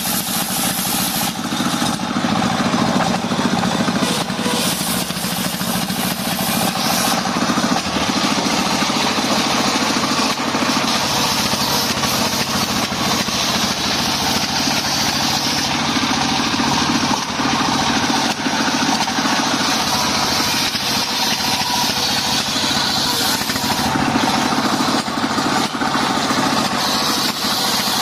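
Stationary engine running steadily and belt-driving a large homemade circular saw blade, with the continuous loud hiss of the blade ripping through lamtoro (leucaena) wood.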